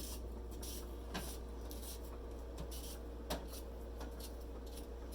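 Vegetable peeler scraping along a raw potato in a series of short, quick strokes, over a steady low hum.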